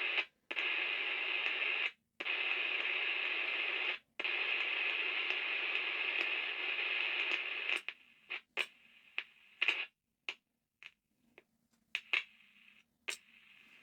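Static hiss from a handheld CB radio's speaker. It cuts out abruptly a few times, then from about eight seconds in breaks up into short crackles and bursts.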